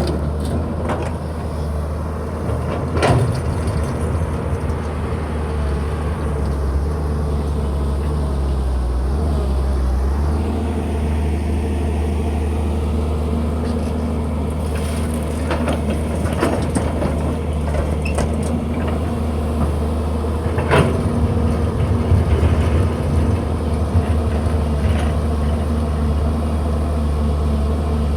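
Excavator engine running steadily, with a few sharp knocks and clanks from the machine at work, one about three seconds in and others past the middle.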